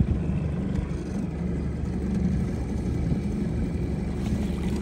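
Small Mariner outboard motor running steadily.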